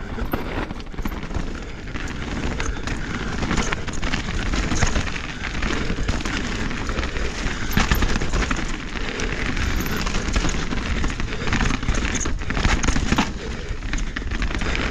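A full-suspension mountain bike on Maxxis Assegai tyres rolling fast down a dirt and gravel singletrack. The tyres crunch over the trail surface, the bike rattles and clacks with many short knocks over the bumps, and a steady low rumble runs underneath.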